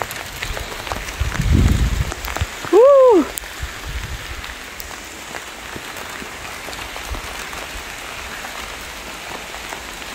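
Graupel, small hail pellets, pattering steadily on the ground and surroundings. A low rumble comes about a second and a half in, and a single short call rises and falls in pitch about three seconds in.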